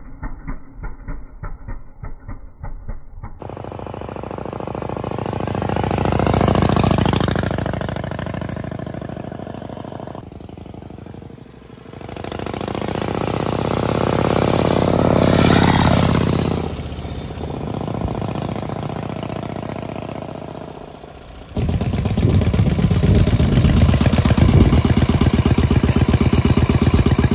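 1950 Harley-Davidson Panhead FL's 1200 cc V-twin engine running as the motorcycle rides by, sounding dull for the first few seconds, then rising and falling in two passes, the loudest about 15 seconds in. About 21 seconds in it cuts to the engine running close up, loud with an even beat.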